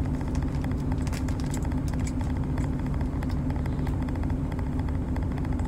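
A truck engine idling steadily, heard from inside the cab as a low, even hum. Small clicks of chewing sit over it, mostly in the first half.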